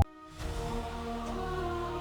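Background music: after a brief dip, soft music with several held, overlapping tones comes in about half a second in and carries on steadily.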